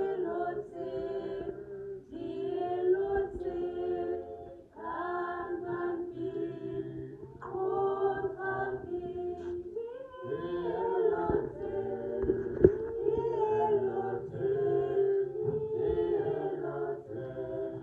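Group of voices singing together in harmony, as a choir, with one brief sharp knock about two-thirds of the way through.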